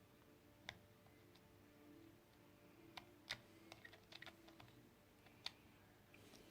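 Faint, scattered small clicks and taps of a small screwdriver working the tiny screws inside a Samsung Galaxy S7 edge, about a dozen, bunched together around the middle, over a low steady hum.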